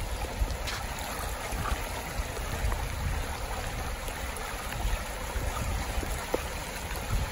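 Fast-flowing floodwater rushing down a street: a steady rush of water.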